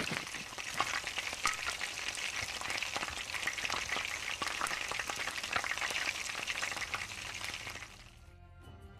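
Sliced onions frying in hot oil in an aluminium pot: a steady sizzle with many small crackles as they sauté. It drops away suddenly about eight seconds in.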